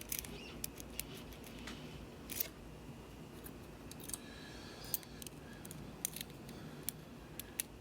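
Lock picks working inside a Euro profile cylinder lock: a tension wrench and pick scraping and clicking on the pins, in scattered small metallic clicks at irregular intervals.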